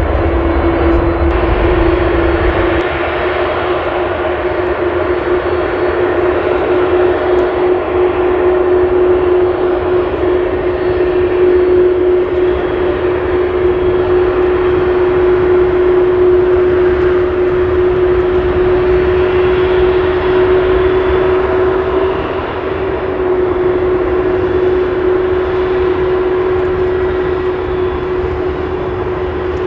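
Airbus A330-200 airliner's twin jet engines running at low power as it taxis, a loud, steady whine over a spread of engine noise.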